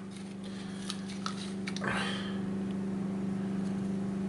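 Steady low hum, with a few faint clicks and a short soft rustle about two seconds in as tools are handled on the workbench.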